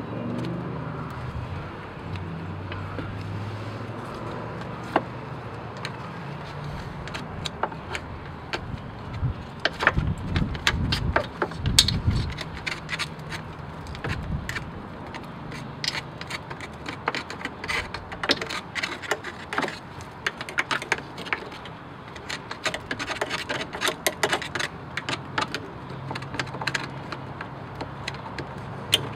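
Screwdriver tip scraping and picking at caked dried mud on a metal steering rack, with flakes cracking off in quick, irregular clicks and scratches. The clicks are busiest about ten seconds in and again from about sixteen to twenty-six seconds. A low steady hum runs underneath.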